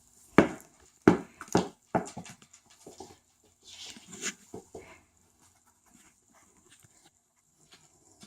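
A small toy ball bouncing and skittering across a kitchen floor as cats chase it: a quick series of sharp knocks in the first two seconds, then lighter taps that die away after about five seconds.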